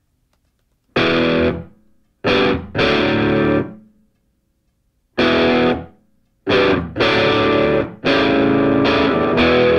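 Outro music: distorted electric guitar chords played in stop-start hits with short silences between them, starting about a second in and held longer near the end.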